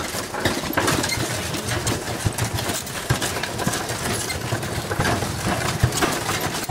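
Ox-cart rolling along, its wheels and frame rattling with many irregular knocks and clatters.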